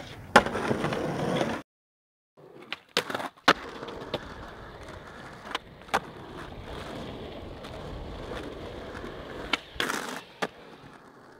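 Skateboard tricks: a hard clack less than a second in followed by about a second of loud rolling and scraping, then after a brief silence, several sharp board pops and clacks over the steady rumble of wheels rolling on asphalt. Near the end the board grinds briefly along a concrete curb.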